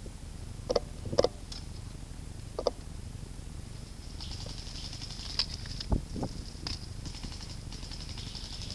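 Airsoft gunfire: a few sharp snaps in the first three seconds, then from about four seconds in a high hiss with fast, even ticking, like electric airsoft guns firing on full auto, and a single dull thump near six seconds.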